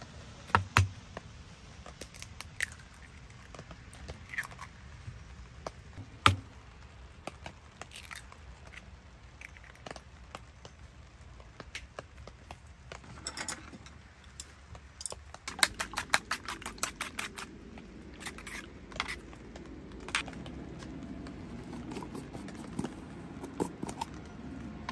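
Eggs cracked one at a time over a wooden bowl, heard as a few sharp cracks spread through the first half. Past the middle they are beaten with chopsticks in the bowl, a quick run of clicking for about four seconds, followed by a few more scattered taps.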